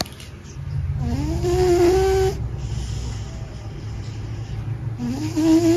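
A cat snoring: a low rumbling breath with a whistling tone that rises and then holds, heard twice about four seconds apart.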